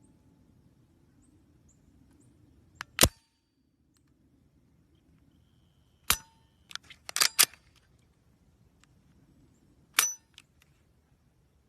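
Glock 17 Gen 4 pistol being handled: sharp metallic clicks and clacks of its mechanism, one about three seconds in, a quick cluster around six to seven seconds, and another near ten seconds, each ringing briefly.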